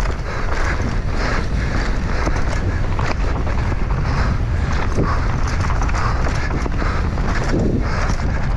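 Wind rushing over a GoPro microphone at riding speed, over a steady clatter of many small knocks from a mountain bike's tyres and frame on a rough trail.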